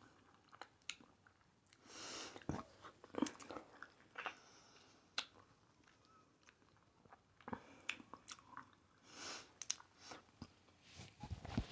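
Close-miked, faint chewing of crunchy Hot Cheeto–coated fried pickles, with scattered small crunches and mouth clicks and a few brief louder crunchy bursts.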